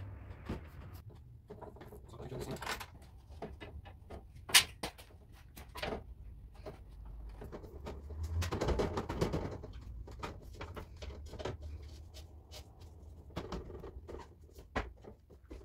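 Scattered clicks, taps and rubbing from hands working on a car door's window frame and run channel, with one sharp click about four and a half seconds in and a longer rustling scrape around eight to nine seconds.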